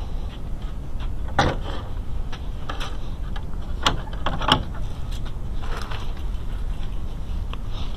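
Wooden fence gate being handled: a few sharp knocks and clicks about one and a half, three, four and four and a half seconds in, and a softer scrape near six seconds, over a steady low rumble.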